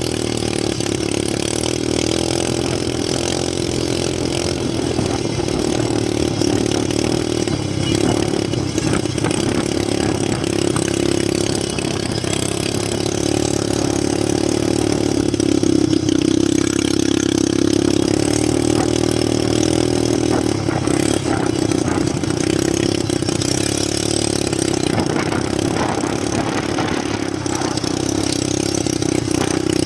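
Quad bike (ATV) engine running throughout, its pitch drifting up and down a little with the throttle.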